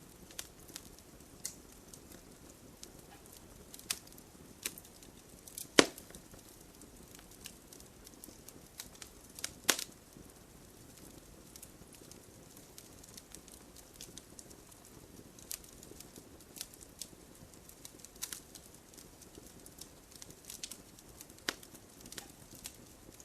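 Campfire crackling: irregular pops and snaps over a faint steady hiss, with two louder pops about six and ten seconds in.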